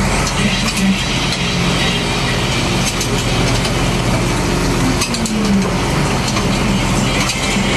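Fishing boat's engine and longline hauling gear running steadily with a low hum while the line is drawn aboard, with scattered clicks and clinks of hooks and fish coming over the rail and a brief falling whine a little past halfway.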